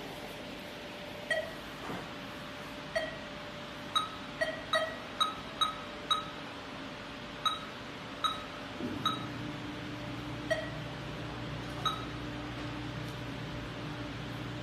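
A dozen or so short electronic beeps at irregular intervals, several in quick succession, like buttons being pressed on a keypad. About nine seconds in, a steady low hum starts.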